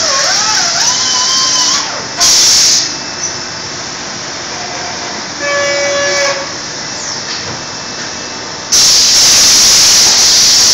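Shoe-lasting machine letting out compressed air: a short loud hiss about two seconds in and a longer one near the end, over steady machine noise. A brief tonal squeal sounds around the middle.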